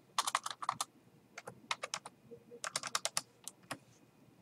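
Computer keyboard typing: several quick runs of keystrokes with short pauses between them, as a number is typed into a spreadsheet cell and entered.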